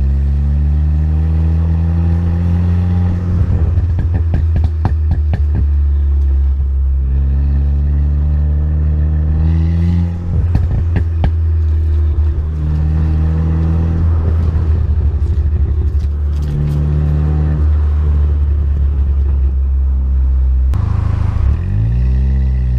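Stage 3 Ford Fiesta ST's turbocharged 1.6-litre four-cylinder, breathing through a catless downpipe and 3-inch cat-back exhaust, pulls up through the revs several times, rising in pitch each time. Each time the throttle is lifted, the tuned-in overrun gives strings of rapid crackles and pops from the exhaust.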